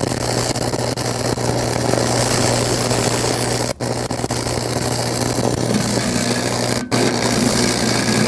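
Lincoln 225 stick welder arc crackling and hissing over a steady low hum, run hot to burn clearance holes through a steel plate instead of welding. The arc breaks off briefly twice, a little under four seconds in and about seven seconds in.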